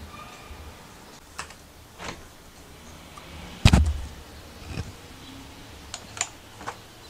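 Window frame being handled: light clicks and knocks, with one heavy thump about halfway through.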